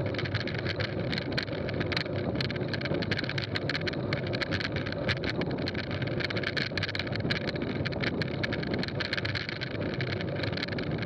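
Mountain-bike tyres rolling over a gravel road at about 25 km/h: a steady rush of tyre and road noise, dotted with many small clicks of gravel.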